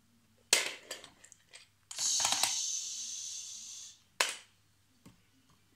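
Plastic toy fire truck being handled: a sharp click about half a second in and another just after four seconds, with a steady high hiss lasting about two seconds between them.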